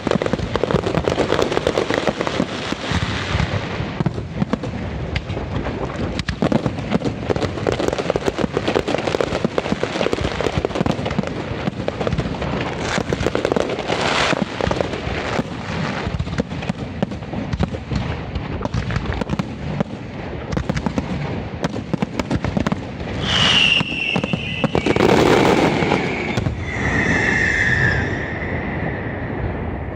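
Fireworks going off in a dense, rapid crackle with bangs mixed in, without a break. Near the end a few high whistling tones sound over the crackle, one of them falling in pitch.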